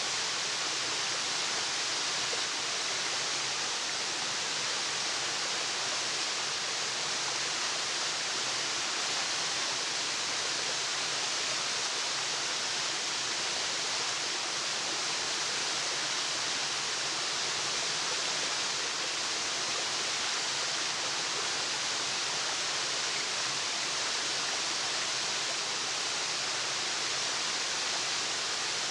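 Waterfall: a steady, even rush of falling water with no breaks, strongest in the hiss.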